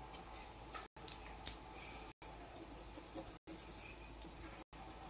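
Faint scratching of a colouring tool drawing on paper, with a couple of small taps about a second and a half in. The sound drops out briefly at regular intervals.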